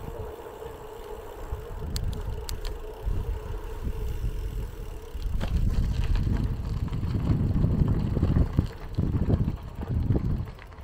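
Wind buffeting a chest-mounted camera's microphone during a bike ride, mixed with the rumble of bicycle tyres on pavement. The gusty rumble grows louder about halfway through.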